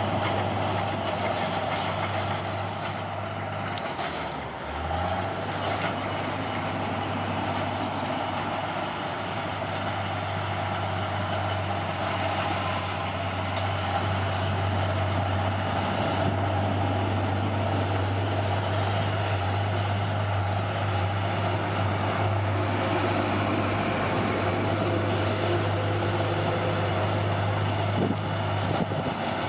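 Caterpillar D6R bulldozer's diesel engine running steadily. Its pitch dips briefly about four seconds in, then comes back up.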